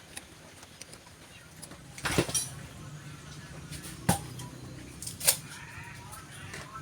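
Three sharp knocks, about two seconds apart, from tools and parts being handled during work on an electric air compressor, over a low steady hum.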